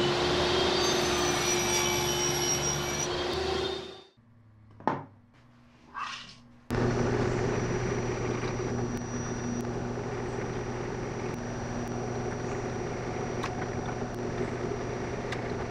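A table saw runs for about four seconds and then cuts off. From about seven seconds in, a drill press drills through a clear acrylic sheet, with a dust extractor running steadily alongside.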